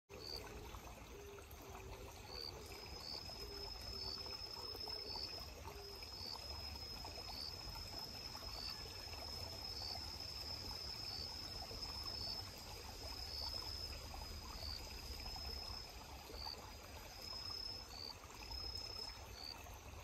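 Crickets singing in the undergrowth. One gives a steady high trill that holds for most of the time, another gives short high chirps about once a second, all over a faint, even background hiss.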